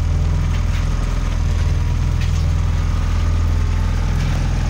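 A fishing boat's engine running steadily, an even low drone. A few faint clicks sound over it.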